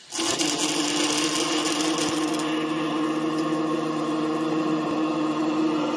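MAG welding arc starting and running: a steady crackling buzz over a constant hum. The crackle is harshest for the first two seconds or so, then settles.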